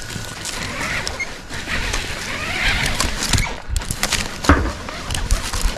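A tree climber moving against a pine trunk: gloves and gear scraping and rustling on the bark, with scattered sharp knocks and clicks and some low rumbling bumps.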